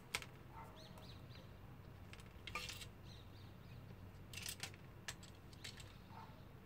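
A handful of light clicks, taps and faint metallic rattles as a thin metal PCB stencil and a plastic caliper are handled and positioned, over a steady low hum.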